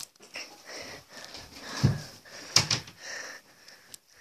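Heavy breathing close to the microphone, broken by a low thump and a couple of sharp clicks.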